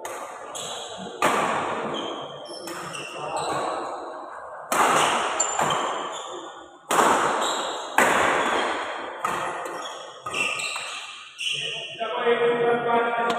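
A fast doubles badminton rally: about a dozen sharp racket hits on the shuttlecock, roughly one a second, the hardest smashes echoing through the hall, with short high squeaks of shoes on the court between them. Near the end the rally stops and voices shout as the point is won.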